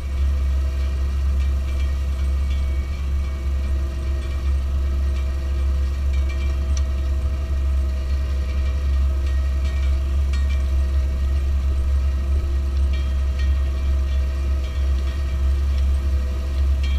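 Tractor diesel engine running steadily with a heavy low rumble, as on a tractor pulling a plough.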